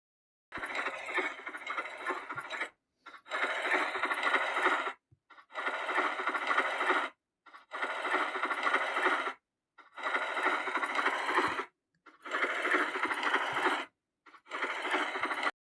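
Seven short sound-effect clips in a row, each one to two seconds long with brief silences between them: a thin, rapid mechanical clatter.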